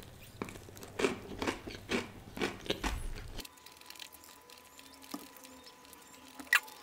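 Close-miked eating: a man biting and chewing a chicken leg, with a run of sharp bites and chews in the first half, then quieter chewing with a few soft clicks.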